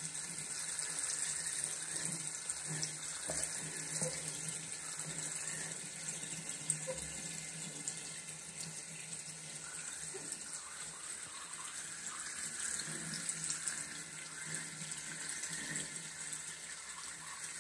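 A thin stream of tap water running steadily from a bathroom basin faucet into the ceramic sink bowl and drain.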